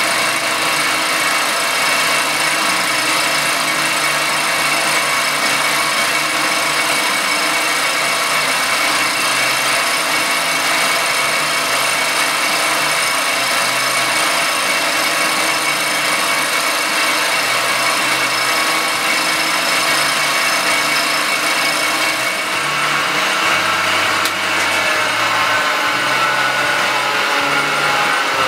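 Circa-1948 Gorton 8-1/2D milling machine running steadily, its cutter milling an aluminum casting: a continuous cutting hiss over several held tones from the spindle drive. The high hiss eases a little about 22 seconds in.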